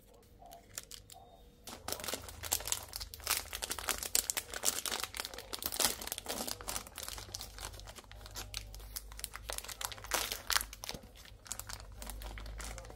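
Packaging crinkling and tearing as it is handled, a dense run of crackles that starts about two seconds in and thins out near the end.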